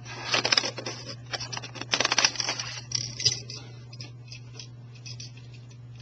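Thompson M1A1 airsoft gun firing in short bursts of rapid clicks, then only a few scattered clicks after about three seconds.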